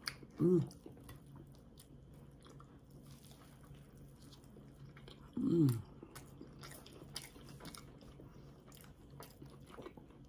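A person chewing a sandwich up close, with soft wet mouth clicks throughout. Two short hummed "mm"s of enjoyment come about half a second in and again near the middle; the second falls in pitch.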